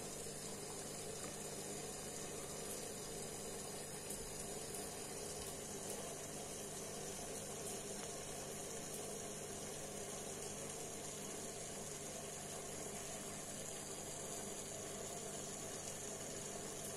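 Aquarium internal power filter running steadily, its outlet jet churning the water with a stream of air bubbles, over a low steady hum.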